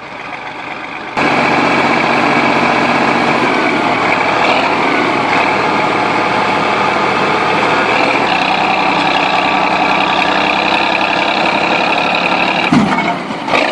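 Bulldozer engine running steadily under load, cutting in abruptly about a second in.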